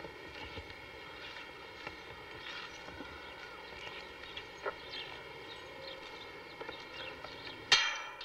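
Steady low hum of several even tones with scattered faint clicks and taps, then one sudden loud crackle a little before the end.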